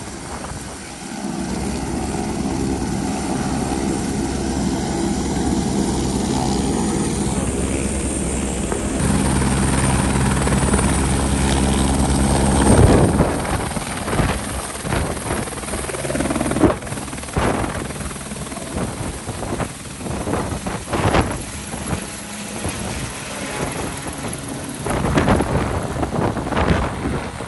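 Light three-bladed helicopter's main rotor and engine beating steadily as it approaches and hovers close. About halfway through the sound turns uneven and gusty, with rotor downwash buffeting the microphone.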